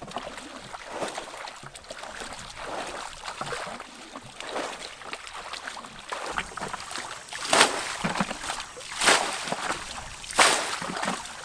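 Shallow muddy water sloshing and splashing as hands grope and feet stir through a drained ditch bed. In the second half come loud splashes about a second and a half apart.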